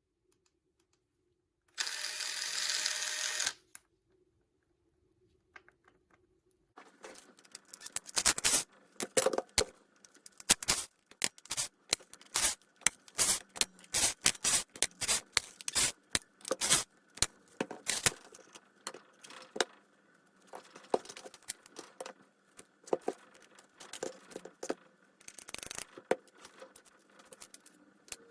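Hard plastic and metal parts of a cordless impact driver clicking and knocking as they are handled, in many irregular knocks, after a short hiss about two seconds in.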